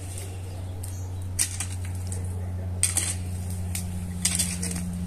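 Steel garden hoe chopping into soil, three sharp scraping strikes about a second and a half apart, over a steady low hum.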